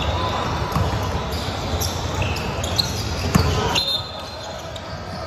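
Basketball bouncing on a hardwood gym floor during play, with short high shoe squeaks and a sharp thud about three and a half seconds in, over a gym din of voices. The noise drops a little about four seconds in.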